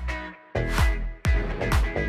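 Background music with a steady beat: drum hits about twice a second over a bass line and held notes.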